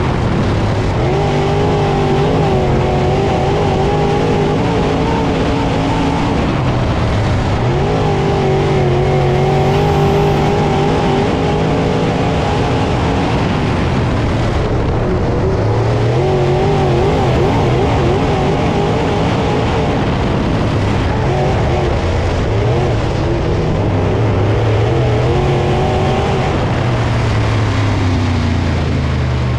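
Dirt late model V8 race engines at racing speed, the engine note climbing on each straight and dropping off into the turns, over and over.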